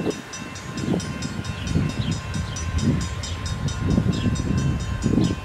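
Amtrak passenger train led by a P42DC locomotive approaching from a distance, its horn held as a steady tone, with a quick regular metallic ringing throughout.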